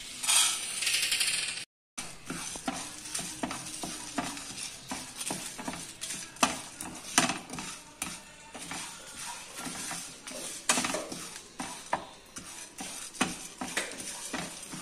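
Whole spices poured into a dry nonstick pan with a short rattling hiss, then a wooden spatula stirring and scraping coriander seeds, peppercorns, fennel seeds and bay leaves around the pan as they dry-roast, making many small irregular clicks and scrapes.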